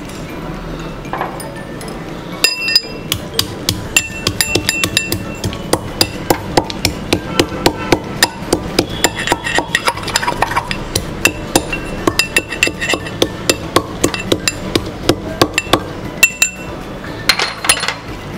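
A pestle pounding whole spices in a metal mortar, striking steadily about three times a second with a metallic ring, and pausing briefly near the end.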